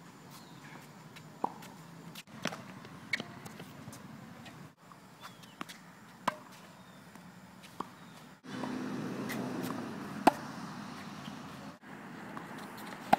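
Tennis balls struck with racquets and bouncing on a hard court: a handful of sharp pops spread several seconds apart, the loudest about two-thirds of the way in.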